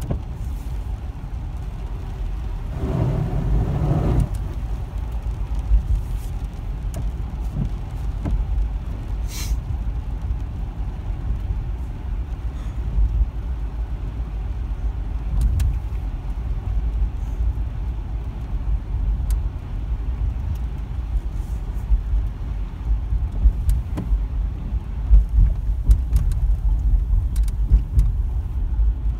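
Steady low rumble of a car driving on a wet road, heard from inside the cabin, with a louder swell of noise lasting about a second around three seconds in.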